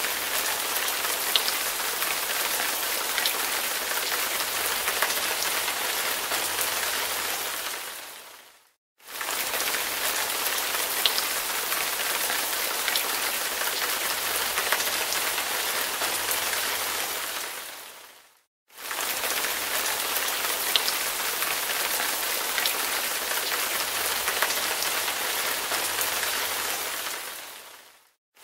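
Steady hiss like falling rain, with faint scattered ticks. It fades out and back in twice, about every nine to ten seconds.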